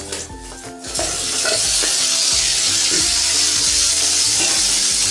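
Chicken pieces poured into hot oil in a wok, setting off a loud, steady sizzle that starts about a second in.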